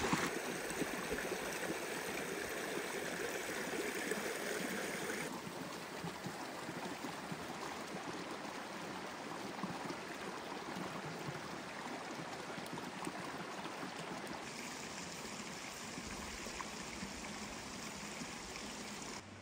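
Shallow river running over rocks: a steady rushing and babbling of water.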